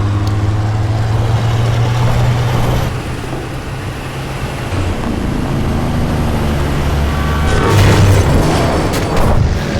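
Action-film chase sound mix: vehicle engines and rumble under a deep, steady low drone, with a louder surge of crashing noise about eight seconds in.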